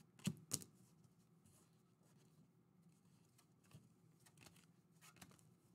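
Faint handling of a stack of glossy trading cards, cards slid and flicked off the front of the pile: two sharp clicks just after the start, then soft, scattered ticks over a quiet room hum.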